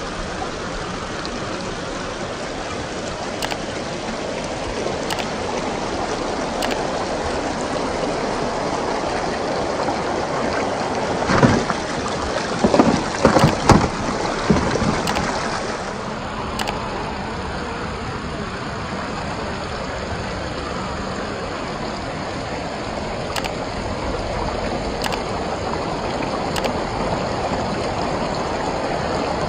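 Stream water running steadily over rocks, with a burst of loud clattering knocks about halfway through as the RC crawler truck tips over onto the rocks.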